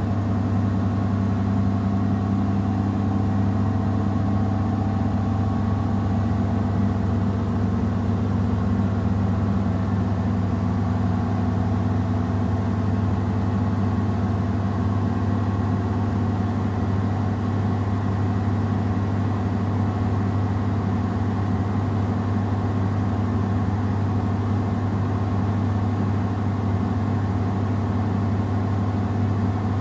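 Samsung WW70T4020EE front-loading washing machine spinning a load of clothes at high speed, with a steady low hum from the motor and drum.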